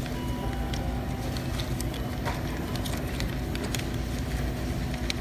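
Paper dollar bills being handled and pushed into a self-checkout's bill acceptor slot: light scattered clicks and paper rustling over a steady low store hum.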